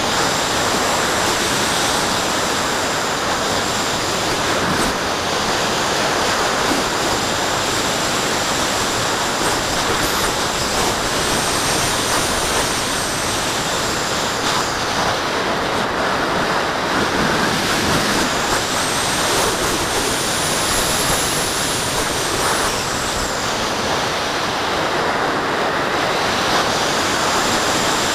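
Steady rush of airflow over a camera microphone mounted on the wing of a model electric glider in flight. A faint high whine rises and falls a couple of times.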